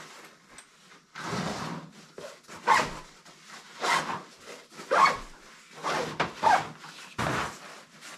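Rustling and scraping of a camouflage military rucksack's fabric and straps being handled and shifted on a table, in irregular bursts with short pauses between.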